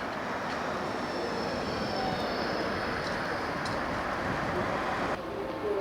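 Steady rush of passing road traffic, engines and tyres, that changes abruptly about five seconds in.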